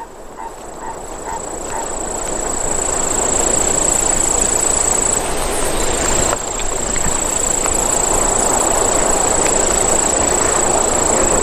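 Steady outdoor bush ambience: an even rushing noise that swells in over the first two or three seconds and then holds, with a thin high whine throughout.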